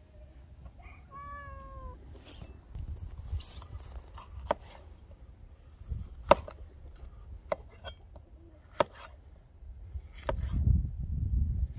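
A knife slicing through a green bell pepper on a cutting board, with single sharp knocks a second or so apart as the blade meets the board. About a second in, a short animal call with a slight downward pitch is heard.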